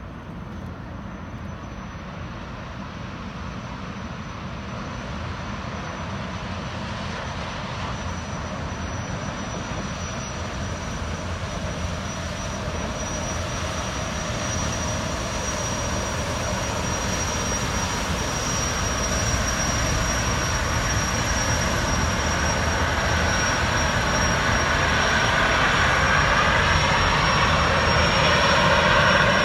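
Jetfoil Seven Island Niji's gas turbines whining over a rushing jet noise, with a thin high whistle, growing steadily louder throughout.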